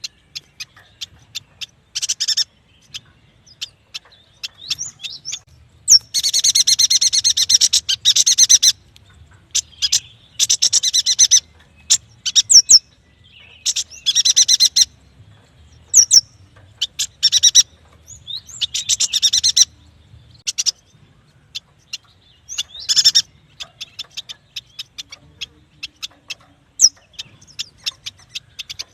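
Yuhina calling: bursts of rapid, high chattering trills, the longest about two and a half seconds, broken up by sharp single chips and a few quick rising whistles.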